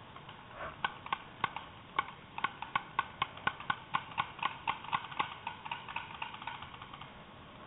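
Paintball marker firing a rapid, even string of shots, about four a second, growing fainter toward the end.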